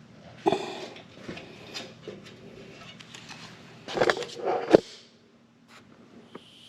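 A few short knocks and clatters: a sharp one about half a second in, and the loudest cluster around four to five seconds in, then near quiet.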